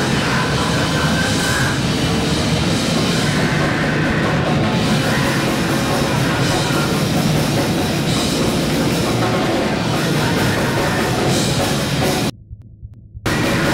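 Loud live grindcore band playing at full tilt: distorted guitars, bass and drums in a dense, continuous wall of sound. Near the end it breaks off abruptly for about a second, then comes back in.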